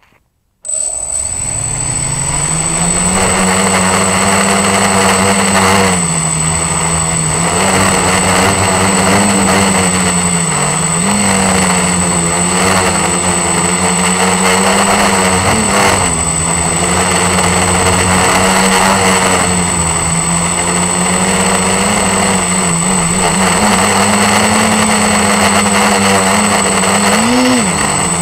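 Quadcopter's electric motors and propellers, heard through its onboard camera: they start suddenly about half a second in and run loudly through the flight, the pitch rising and falling with the throttle, over a steady high whine.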